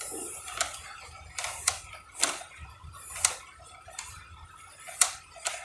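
Irregular sharp metal-on-metal taps and clicks, about seven in five seconds, from steel tools working a hub puller and shims on a truck's front hub; the loudest come about three and five seconds in.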